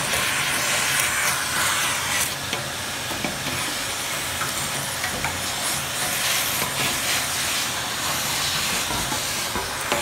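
Household vacuum cleaner running steadily, its crevice nozzle sucking dirt and debris out of the bottom of a box fan's housing.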